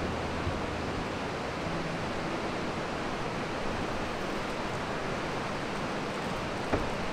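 Steady, even rushing outdoor noise, with a short click about half a second before the end.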